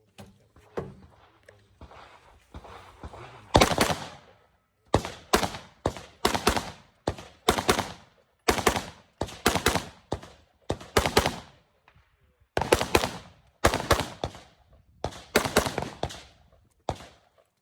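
AR-15 pistol fired semi-automatically in a long string of about thirty shots, coming in quick irregular bunches, after a few seconds of quieter handling noise.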